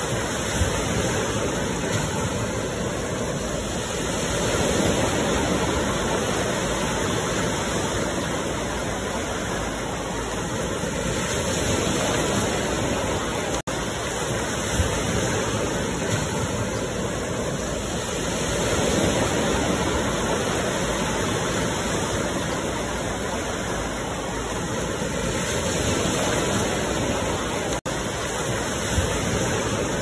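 Ocean surf washing in a steady rush that swells and eases about every seven seconds, as waves roll in. The sound cuts out for an instant twice.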